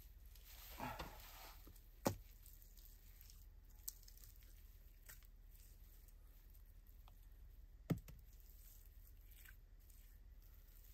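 Quiet work noises: a short scraping rustle about a second in, then two sharp knocks, one about two seconds in and one near eight seconds, over a low steady hiss.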